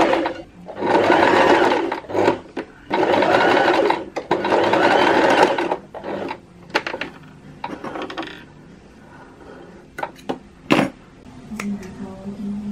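Sewing machine stitching in three short runs of about a second each, with brief stops between, followed by a few light clicks.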